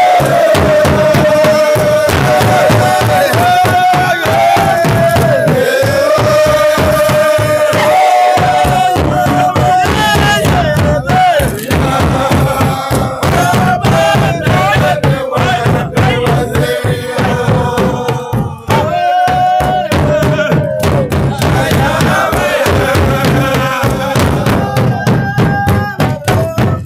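Ensemble of double-headed drums played with curved sticks, dense fast strokes, with a voice singing or chanting long gliding phrases over it.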